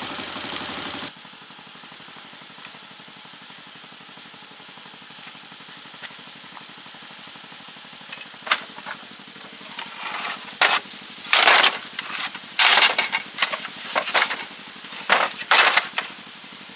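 Cargo tricycle's small engine running, dropping suddenly to a quieter steady run about a second in. In the second half come a series of short, loud hissing bursts.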